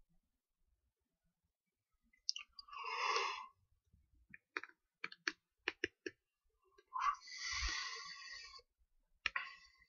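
Two breathy exhales close to a microphone, with a run of short sharp clicks between them and another click and breath near the end.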